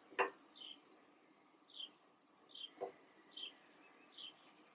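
Crickets chirping steadily at about three chirps a second. Twice there is a soft knock as sweet potato sticks are set down on a cast-iron griddle plate.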